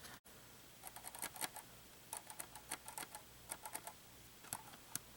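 Scattered light clicks and taps of small plastic parts as a 1/24-scale Axial SCX24 micro crawler is handled, coming in loose clusters.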